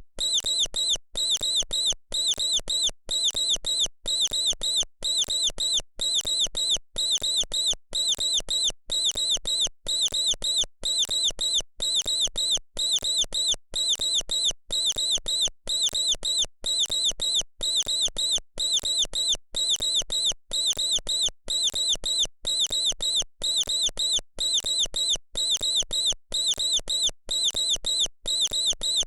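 Mouse squeaking in quick high-pitched bursts, about two a second, repeating at an even pace.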